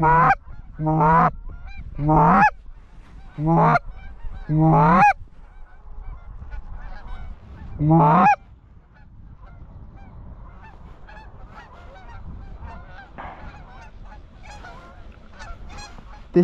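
Canada goose calling: six loud honks close to the microphone in about the first eight seconds, each a low note breaking sharply upward, typical of a hunter's goose call worked at incoming flocks. After that comes fainter, overlapping honking of a flock of wild Canada geese in flight.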